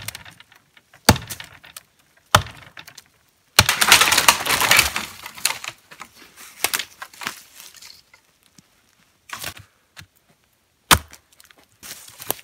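Hatchet chopping into a small aspen trunk: three sharp chops about a second apart, then about three and a half seconds in the trunk cracks and breaks with a long splintering crash as it comes down. Another sharp chop lands near the end.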